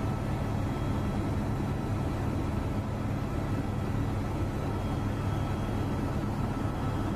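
Steady engine drone of the aircraft flying overhead with the camera: a constant low hum with a few faint, steady whining tones above it.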